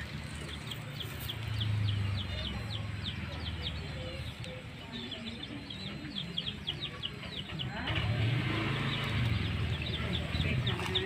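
A bird chirping in quick runs of short, high, falling notes, pausing about seven seconds in and starting again near the end, over a low background hum.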